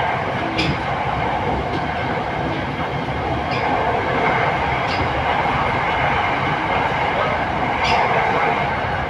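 Interior of an SRT Red Line electric commuter train running at speed: a steady rolling and running noise, broken by a few brief sharp clicks.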